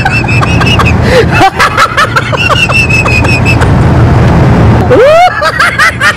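Two men laughing hard together in quick runs of short giggles, with a rising whoop near the end, over a steady low rumble.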